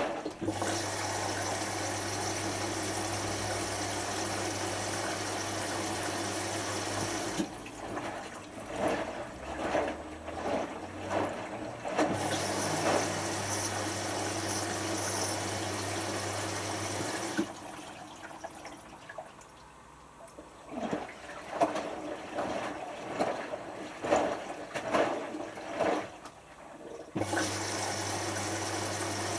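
Hotpoint HF8B593 washing machine on its first rinse: the water inlet valve fills the drum in steady spells with a low mains hum, stopping for stretches where the drum turns and the water sloshes in irregular surges, then filling again near the end.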